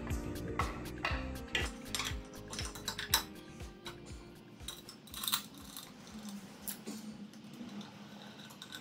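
Small metal parts clinking and clicking: steel bolts picked out of a metal drip tray and an engine side cover fitted onto a small motorcycle engine. The clicks come thick and fast for the first few seconds, then only now and then. Background music plays under the start.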